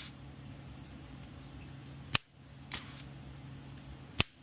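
Two sharp clicks about two seconds apart, over a steady low hum, from desoldering work on a circuit board.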